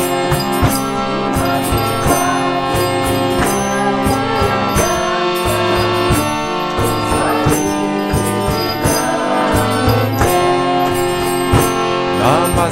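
Instrumental kirtan music: sustained melodic tones over a steady beat of drum and small hand cymbals.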